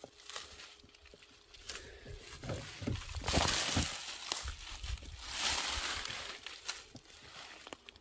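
Irregular rustling and brushing of forest undergrowth as someone moves through the plants, with a few short snaps and clicks; loudest through the middle.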